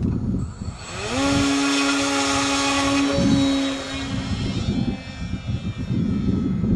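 Foamaroo RC flying wing's motor and propeller spinning up with a rising whine about a second in and holding at full throttle, then fading as the plane flies off, from about four seconds in.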